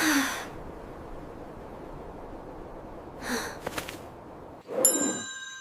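A bell struck once near the end, ringing on with several clear tones, after a couple of soft breathy sighs.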